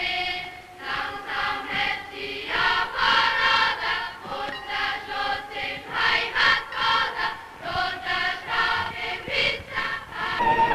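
A choir singing, with the words sung in a steady pulse of a few syllables a second, heard on an early-1930s sound-film recording.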